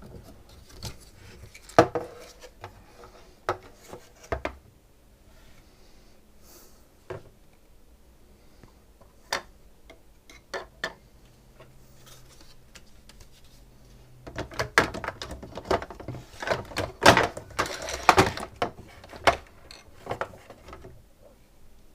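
Clicks, knocks and clatter from SodaStream parts being handled and worked on during disassembly: scattered single clicks at first, then a busier run of clattering about two-thirds of the way through.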